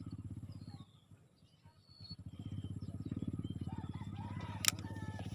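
A small engine running with an even, rapid low putter that drops out about a second in and comes back a second later, with birds chirping over it and one sharp click near the end.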